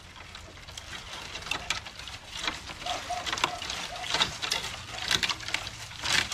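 Dry branches and twigs crackling and snapping in irregular clicks as a bare shrub's stems are grabbed and cut back. Midway, a bird gives a run of short, evenly spaced notes.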